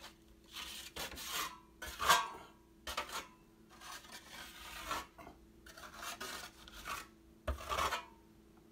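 Steel drywall trowel scraping across wet rapid-set joint compound on a ceiling, knocking down dabs of mud into flat plateaus for a knockdown texture. Short scraping strokes come about once a second, the loudest about two seconds in.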